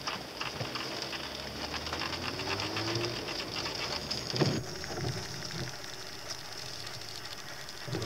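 Rain pattering on a car's roof and windscreen, heard from inside the car, with the car's engine running underneath and a tone rising briefly about two to three seconds in. A single louder knock about four and a half seconds in.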